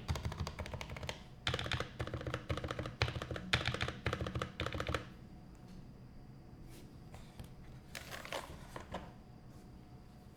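Fast continuous typing on a custom HHKB-layout mechanical keyboard, the Taycan HHKB. About halfway through the flurry of keystrokes stops, and only a few scattered key presses follow.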